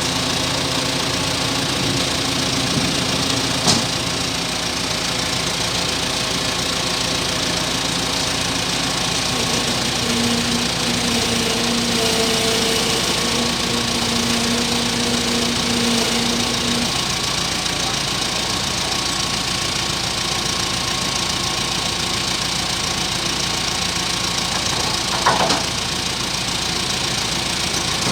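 Heavy-vehicle engine running steadily. An added higher hum joins for several seconds around the middle, and there are two sharp knocks, one about 4 seconds in and one near the end.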